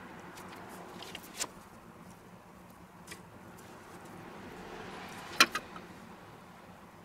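Quiet handling sounds of a pizza being topped by hand, grated cheese and ham slices laid onto the dough on a metal pizza peel, with a few light clicks about a second in and one sharp click, the loudest sound, a little past five seconds. A steady low hum runs underneath.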